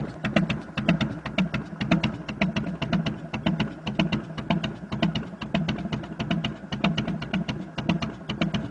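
Harley-Davidson Softail Heritage's V-twin idling through unbaffled Vance & Hines Long Shots straight pipes: a steady, uneven, loping beat of sharp exhaust pulses, several a second.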